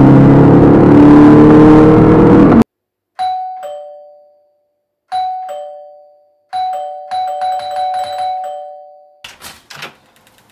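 A car engine revving loudly, rising in pitch, cutting off suddenly after about two and a half seconds. Then a two-tone ding-dong doorbell, a high note then a lower one, rings twice and is then pressed several times in quick succession. A few clicks follow as the front door is opened.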